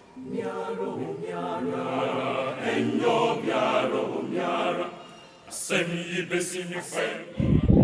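A group of voices singing a chant-like chorus together, breaking off briefly about five seconds in. A loud low thump comes near the end.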